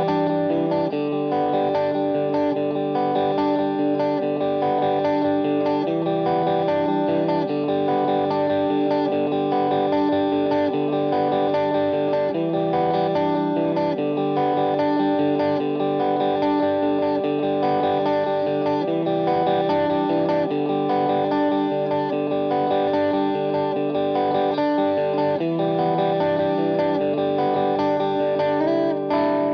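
Suhr Classic electric guitar playing a repeating riff of ringing notes and chords.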